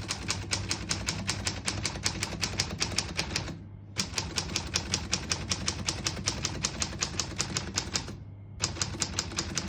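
A 1938 Corona Standard portable typewriter being typed on: a fast, even run of key strikes as the type bars hit the platen. The typing pauses briefly twice.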